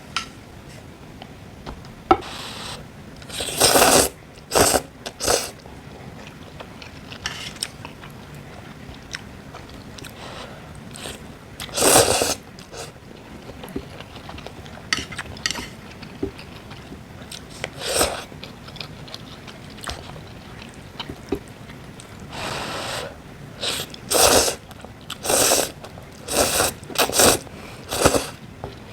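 Close-miked eating: chewing and crunching in irregular bursts, busiest near the end.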